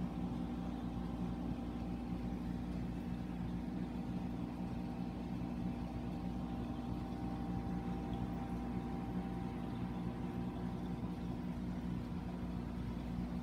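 Steady low mechanical hum of a saltwater reef aquarium's pumps running, with a faint higher whine held on one pitch.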